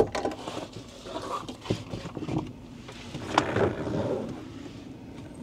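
Metal latch on a truck canopy camper's side hatch snapping open with a sharp click, followed by knocks, rattling and scraping as the hatch is swung open.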